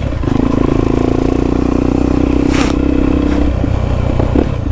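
Honda XR250 Tornado's 250 cc single-cylinder four-stroke engine running loud through a Belparts aftermarket exhaust while riding, a steady throaty drone with a few short sharp cracks near the end.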